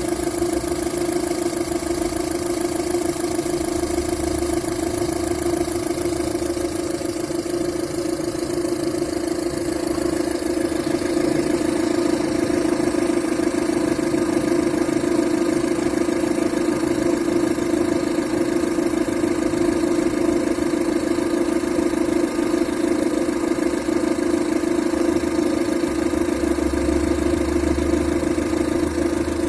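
An engine or motor running at a steady speed, a constant hum that neither rises nor falls.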